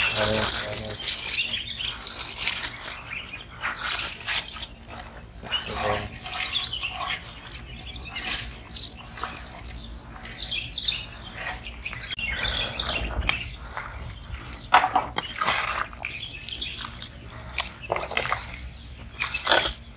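Soaked biryani rice tipped from a plate into a pot of hot prawn masala liquid, splashing and hissing as it goes in, then irregular bubbling and splashing from the liquid. Near the end a ladle stirs in the metal pot.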